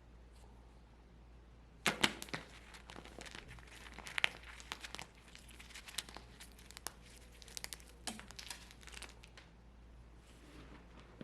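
Brittle dry baked soap breaking up with crunching and crackling. It starts about two seconds in with a sharp crack, goes on as uneven crisp crackles, and dies down to faint crackles near the end.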